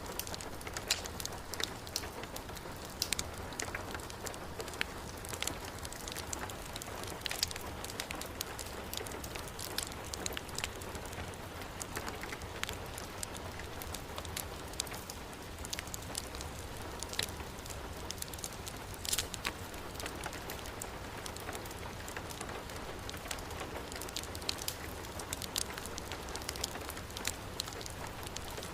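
Heavy rain falling in a steady hiss, mixed with a wood fire burning in a fireplace, its sharp crackles and pops coming irregularly every second or so.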